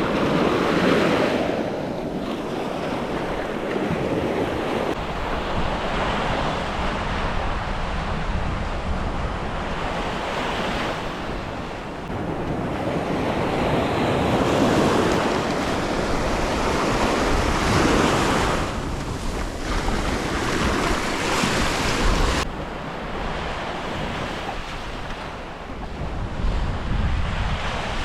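Surf breaking and washing up on a sandy beach, swelling and easing with each wave, with wind buffeting the microphone.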